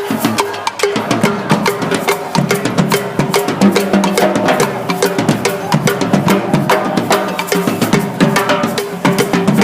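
Music with a busy drum and percussion beat, with held bass and mid notes under the rapid strikes.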